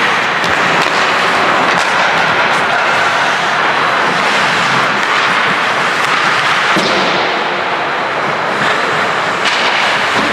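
Ice hockey play in a rink: a steady noisy rush of skates and arena noise, with a few sharp knocks of sticks, puck or boards.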